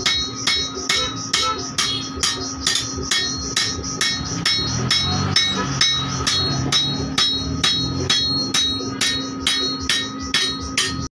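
Steady rhythm of hammer blows on metal at an anvil, about two a second, each with a short metallic ring, over a steady hum.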